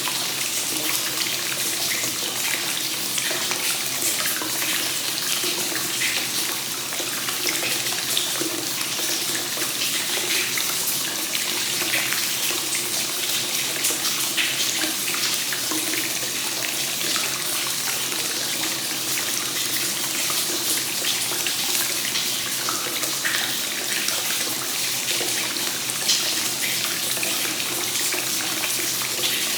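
Hot spring source water flowing continuously into a bath: a steady splashing pour with small spatters throughout.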